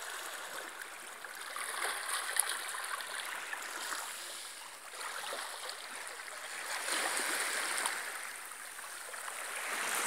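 Small sea waves lapping and washing in at the water's edge, a steady hiss that swells a little twice.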